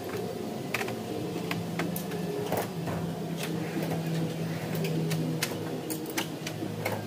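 Sped-up workshop audio: a steady machine-like hum with scattered sharp clicks and clinks from hand tools being handled at a steel tool chest.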